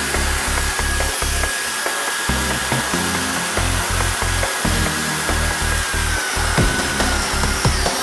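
Spiider electric concrete engraving saw running steadily as it scores a curved line in a concrete floor, a high motor whine dipping slightly in pitch near the end, over background music with a bass beat.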